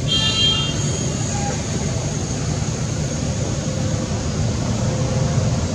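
Steady low outdoor rumble, with a brief high-pitched squeal with several overtones at the very start.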